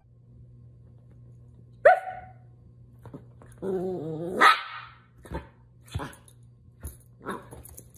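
Small curly-coated dog barking. A single sharp yip comes about two seconds in, then a short growl that rises into a loud bark near the middle, then a run of short, spaced barks.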